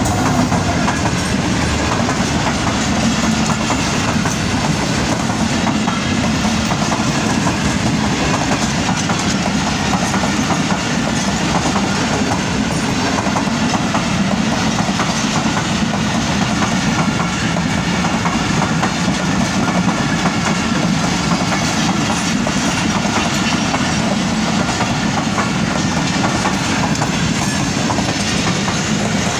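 Express passenger train passing close by, its coaches' wheels clattering steadily over the rail joints.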